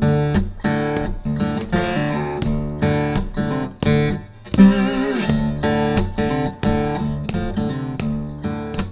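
Outro music on guitar: notes picked and strummed in a steady run, with one note bent in pitch about halfway through.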